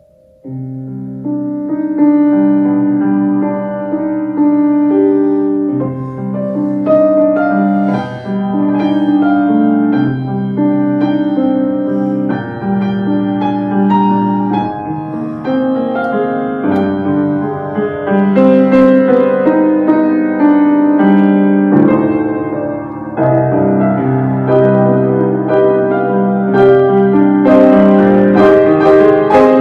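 Grand piano played solo: a piece of held chords that starts about half a second in and goes on steadily.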